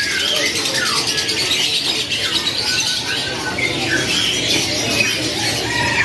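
A flock of caged domestic canaries chirping and twittering together: a dense, continuous chatter of many overlapping short high-pitched calls and quick pitch glides.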